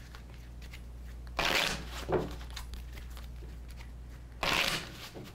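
A deck of tarot cards being shuffled by hand: two short, loud rustling bursts about three seconds apart, with a softer one in between.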